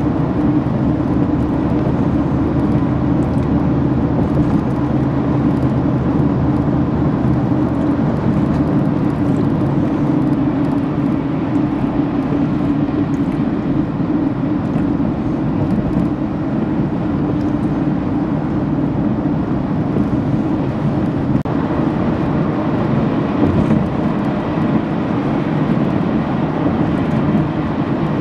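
Steady road noise of a car driving on a wet highway, heard from inside the cabin: a constant hum of tyres and engine.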